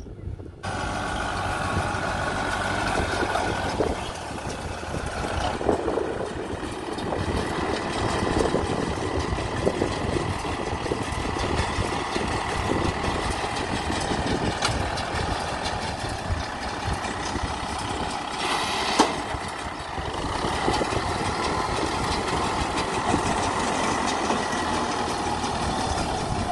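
Kubota M6040 tractor's diesel engine running steadily while it pulls a working round baler through rice straw. The sound comes in abruptly less than a second in, and one sharp click stands out about three-quarters of the way through.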